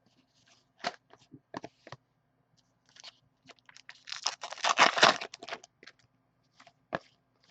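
Hockey trading cards and their packaging handled at a table: light clicks and scrapes of cards, with a crinkling, rustling stretch of wrapper or plastic sleeve about four seconds in.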